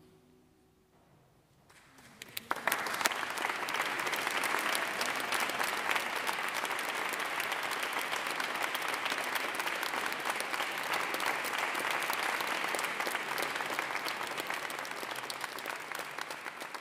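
Audience applause after a short hush, breaking out about two seconds in and building quickly into steady, dense clapping that eases slightly near the end.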